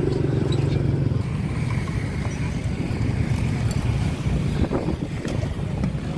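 Steady rumble of road traffic with motorbike engines running, loudest in the first second.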